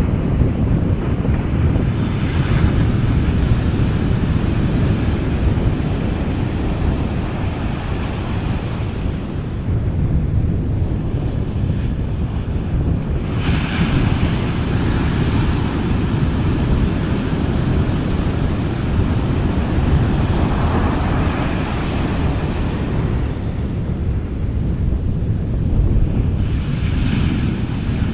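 Gentle sea waves breaking and washing up a beach, a hissing surge every several seconds, over a steady low rumble of wind on the microphone.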